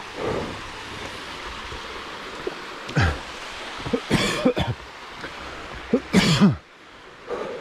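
A person coughing hard, three loud coughs about three, four and six seconds in, over the steady rush of a small stream.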